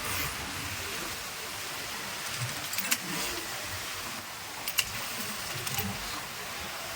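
Sewing machines running in a garment factory workroom as a steady mechanical hiss, with a few sharp clicks about three, five and six seconds in.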